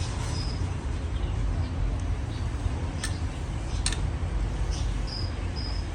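Steady low machinery hum with two sharp clicks a few seconds in and a couple of short high-pitched squeaks near the end.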